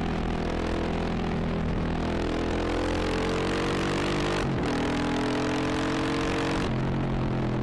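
Motorcycle engine pulling hard under acceleration from the rider's position. Its pitch climbs steadily and drops at gear changes about four and a half seconds and about six and a half seconds in, over a steady rush of wind.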